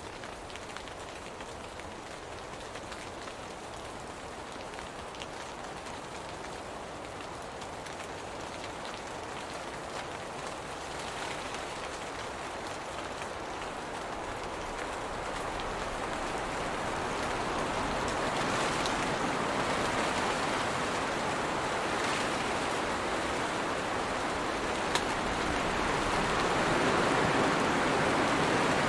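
Steady rain falling on the leaves of a tree, with a few sharper single drips. The rain grows heavier and louder through the second half.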